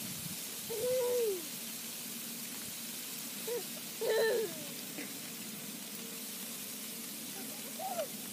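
A young child's voice: a few short, high-pitched vocal sounds, the longest about a second in and another about four seconds in, over a steady faint outdoor hiss.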